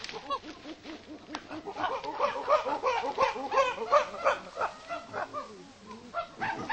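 Chimpanzee pant hoots: a rapid series of short rising hoots that builds to louder, higher calls about two seconds in, eases off, then starts up again near the end.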